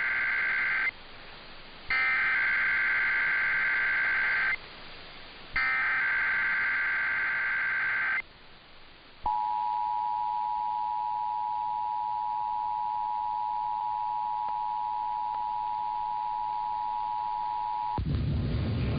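Emergency Alert System header and attention signal for a required monthly test. The end of one digital header burst plays, then two more full bursts of rapid, high, warbling data chirps, each a couple of seconds long. After about a second's pause comes the steady two-tone attention signal, held for about nine seconds until a voice begins.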